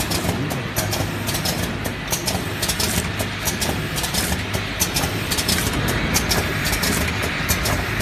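An automatic eye drop filling and capping machine running, with a steady low motor hum and rapid, irregular clicking and clatter from its moving parts and the small plastic bottles carried round its rotary turntable.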